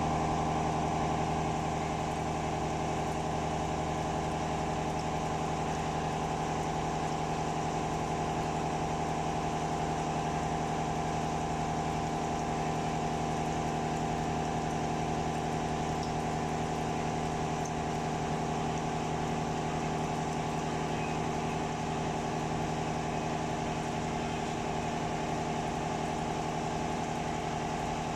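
Walter F4033 3-inch face mill with Tiger·tec Gold inserts face-milling hardened O1 tool steel (40 HRC) at 670 rpm, 1.5 mm deep: a steady machining hum with a held, even tone from the cut, unchanging throughout.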